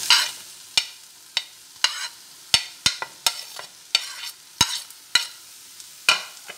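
Diced brinjal being scraped off a ceramic plate into a hot pan of frying onions: about ten sharp clinks and knocks against the plate and the pan, irregularly spaced, over a faint sizzle.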